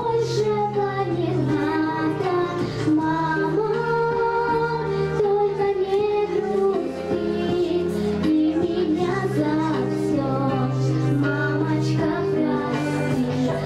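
A young girl singing a slow melody into a handheld microphone over instrumental accompaniment.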